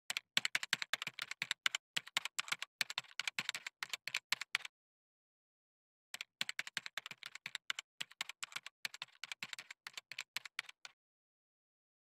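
Rapid typing on a computer keyboard, dense key clicks in two runs of about four and a half seconds each, broken by a pause of about a second and a half.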